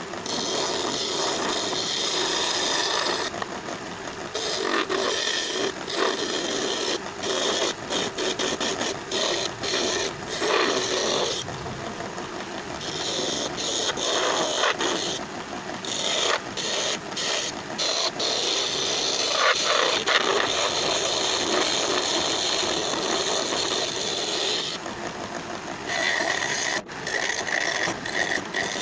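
Wood lathe turning a table leg while a hand chisel cuts the spinning wood, a steady scraping hiss of shavings being peeled off. The cutting noise breaks off briefly several times as the tool is lifted from the work and then set back on.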